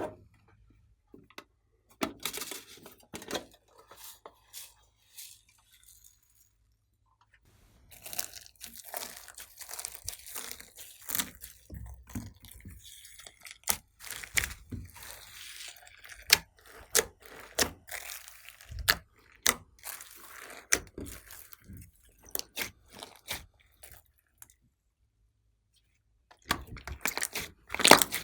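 Glossy slime being kneaded and stretched by hand: irregular sticky crackles and pops, falling quiet briefly twice.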